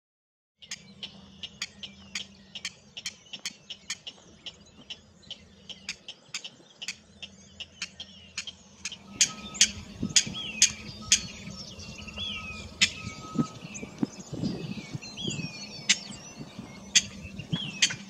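A rail calling: a long series of sharp, dry clicking notes, two or three a second, louder from about nine seconds in. Smaller birds chirp in the background over a low steady hum.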